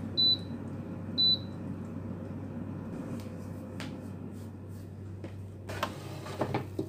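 Mee Home air fryer beeping at the end of its cooking timer: two short high beeps about a second apart, over a steady low hum. A few clatters near the end as the basket is pulled out.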